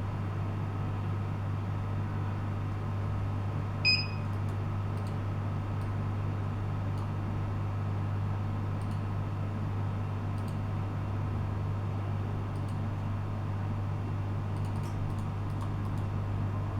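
Steady low electrical hum with a single short electronic beep about four seconds in, and faint scattered ticks.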